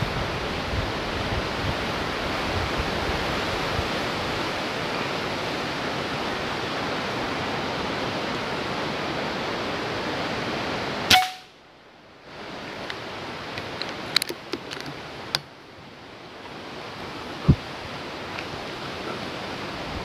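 Wind rustling through tree foliage, then a single sharp rifle shot about halfway through, after which the wind noise falls away. A few light clicks and another short sharp crack follow.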